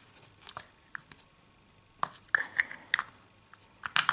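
Hard plastic toy parts clicking and knocking together as a Snoopy Happy Meal toy is handled and fitted together: a handful of short sharp clicks and taps spread through the few seconds.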